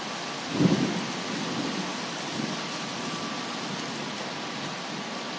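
Heavy rain falling on the water of an outdoor swimming pool, a steady hiss. A short low rush of sound comes about half a second in.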